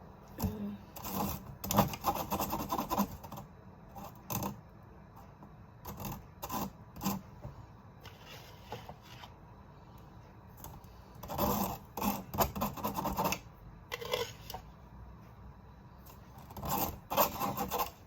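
Sugar being worked through a sieve with a spoon: scraping and rubbing strokes in several bursts, with a few sharp clinks.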